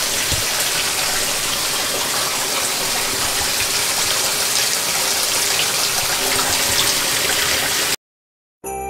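Water gushing steadily into the tub of a GE top-load washing machine as it fills for the wash. It cuts off abruptly near the end, and jingling music starts just before the end.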